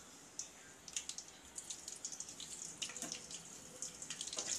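Mustard seeds crackling and popping in hot oil in a stainless steel pan as they are tempered. The crackle is faint at first, and the pops come thicker from about a second in.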